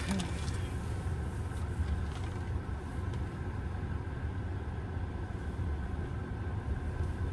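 Steady low rumble of engine and road noise inside the cabin of a 2024 Hyundai Creta SUV on the move.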